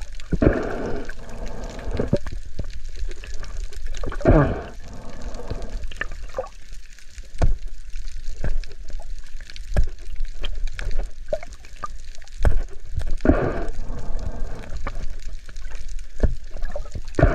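Water gurgling and sloshing around a spearfisher's camera at the sea surface, with many scattered clicks and knocks. Louder gurgling rushes come near the start, about four seconds in, and about thirteen seconds in.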